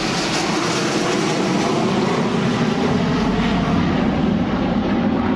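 Steady, loud vehicle rumble, a dense even noise with a faint hum running through it, laid in as a sound effect.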